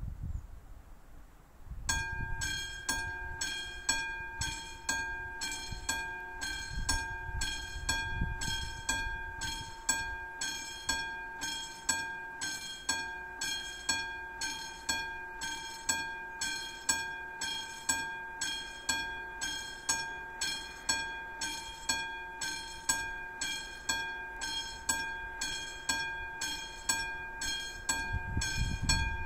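Classic electric warning bell of a Czech level crossing starting up about two seconds in and ringing steadily, about two strikes a second with a clear ringing tone: the crossing warning has switched on for an approaching train.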